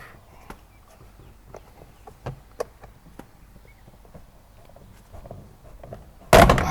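Plastic clicks and knocks of a car's rear door trim panel being pried and worked loose from the door. A loud, sudden clatter comes about six seconds in.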